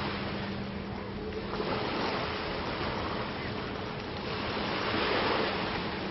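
Small waves washing up on a sandy beach, the surf noise swelling and easing every couple of seconds, with a faint steady low hum under it.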